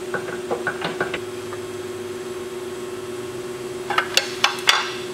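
Floor jack being slowly let down under a motorhome's lower control arm as the front coil spring extends: a few light clicks, then a quick run of sharper, louder clicks about four seconds in, over a steady background hum.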